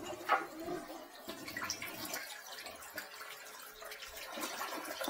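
Water in a toilet bowl being stirred by an inspection camera's cable as it is fed in, with light trickling and scattered small clicks from handling.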